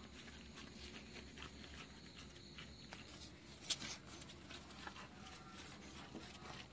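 Stray dogs chewing and crunching food on concrete, with faint irregular clicks and taps from jaws and claws, and one sharper click about halfway through.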